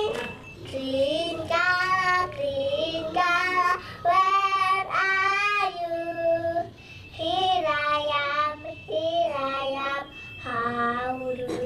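A child singing a simple tune in held notes, phrase by phrase with short pauses.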